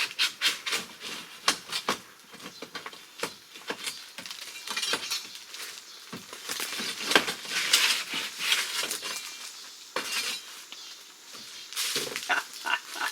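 Irregular clinks, clicks and scraping, a run of sharp knocks spread unevenly with rustling between them.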